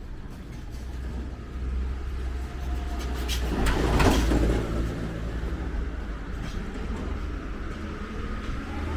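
A motor vehicle drives past, its engine and tyre noise swelling to a peak about four seconds in and then easing off, over a steady low traffic hum.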